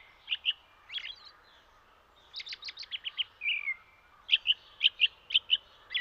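Songbird chirping: short high chirps in bursts, with a few downward slurred notes and a short lull about two seconds in. The chirps come louder and quicker near the end.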